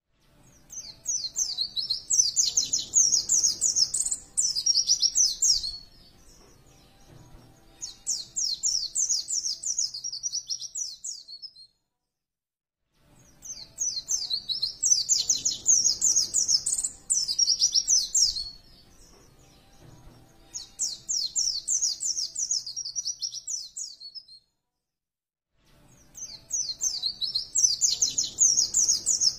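White-eye (pleci) singing: bursts of fast, high chirping trills about four to five seconds long, separated by short pauses and repeating in a regular pattern.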